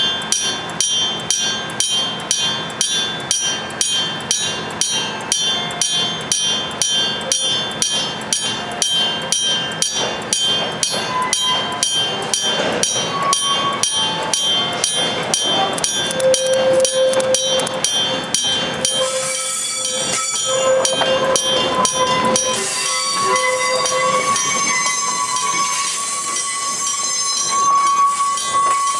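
Japanese level crossing warning bell clanging steadily at about three strikes a second. From around the middle a freight train of empty container wagons, pushed from the rear, comes through the crossing; long squealing tones rise over its rumble in the second half.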